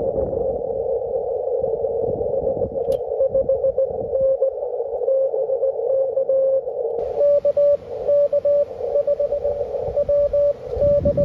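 Morse code (CW) on the 20-metre band heard from a Yaesu HF transceiver's speaker: a single-pitch tone keyed in dots and dashes over band hiss narrowed by the CW filter. About seven seconds in, the hiss widens and the tone sits slightly higher as the receive antenna is switched from the 125-foot delta loop to the two-element wire yagi.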